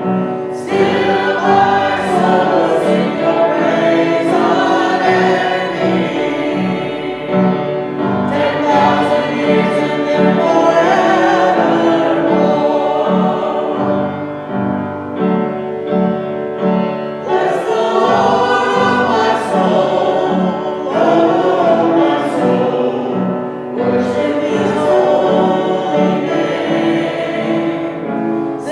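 Worship music: several voices singing a hymn together over instrumental accompaniment, with a repeated low note pattern keeping a steady beat.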